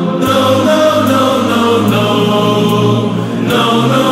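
Background music: a song with choir-like sung vocals holding long notes.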